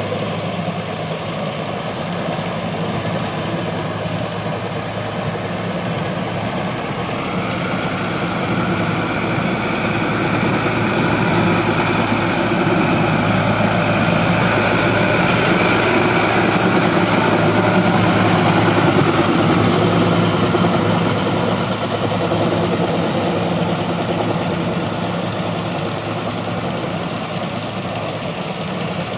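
Sonalika tractor's diesel engine running steadily while pulling an implement through flooded mud, growing louder toward the middle as it comes close and fading again as it moves away.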